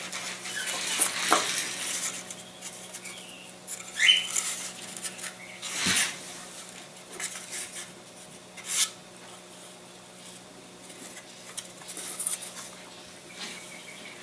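Light clicks, taps and clatter of thin laser-cut balsa and plywood model-aircraft parts being handled and set down on a worktable, with a short rising squeak about four seconds in and a faint steady hum underneath.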